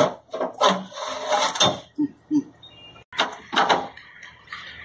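Clattering knocks and rattles of metal parts and tools being handled under a jeep's dashboard: a handful of sharp knocks, one every second or so.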